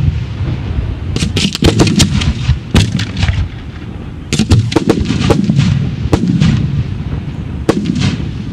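Fireworks display: mortar-fired shells going off as a rapid, irregular series of sharp bangs and cracks in clusters over a continuous low rumble.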